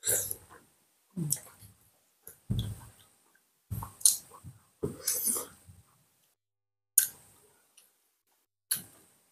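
Close-miked eating sounds, chewing and wet mouth noises, in about eight separate short bursts, roughly one a second, with quiet gaps between.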